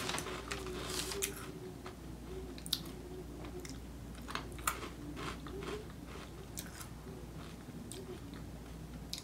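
Crunching and chewing of dry peanut butter cereal pieces, a scatter of sharp crunches. A rustle of the plastic bag in the first second or so as a hand reaches in for more.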